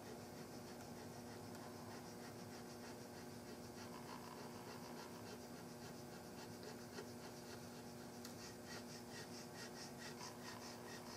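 Hand checkering tool cutting lines into a walnut gunstock: faint, rapid, even scratching strokes of the cutter in the wood, plainer from about eight seconds in. A steady low hum runs underneath.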